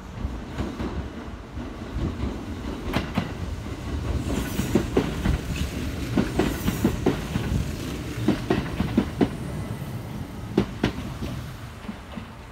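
Kintetsu 2400-series electric train running past, its wheels clacking over rail joints in repeated clusters of sharp clicks over a steady low rumble. A faint high-pitched wheel squeal comes in around the middle.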